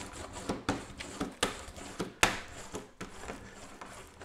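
Rubber brayer roller rolled back and forth over transfer paper on a gel-medium-coated wooden coaster, making a run of irregular rolling and scraping strokes, a few a second. The rolling presses out air pockets so the paper makes full contact.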